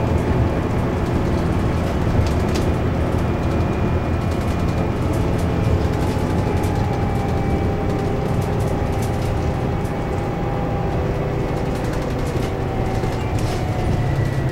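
Scania K320UB bus heard from inside while driving: its nine-litre five-cylinder diesel runs steadily under way, with a faint steady whine from the ZF Ecomat automatic gearbox through the middle, and scattered clicks and rattles from the body.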